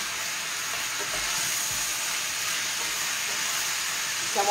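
Pork spare ribs and sausages sizzling steadily in a hot pan as they brown, being turned over in the pan.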